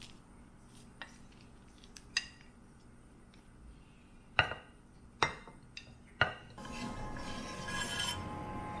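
Chopsticks and a ceramic plate clinking against a ceramic bowl as food is set in, five sharp clinks with brief ringing, the later ones loudest. Background music with held tones comes in near the end.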